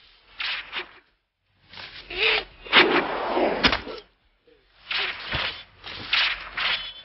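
People wailing and sobbing in bursts, with two sharp blows about a second apart in the middle.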